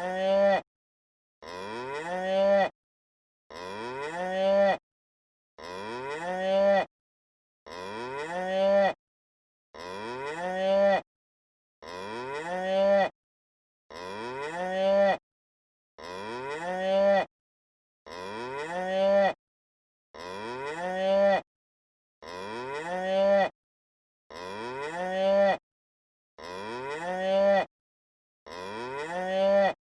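Cow mooing: the same moo repeats about every two seconds, each call rising in pitch and growing louder before cutting off suddenly, with silent gaps between.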